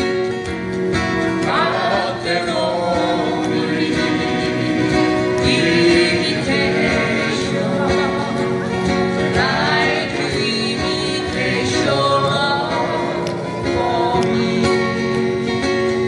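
Live country-style acoustic group: several acoustic guitars strummed together under sung vocal phrases.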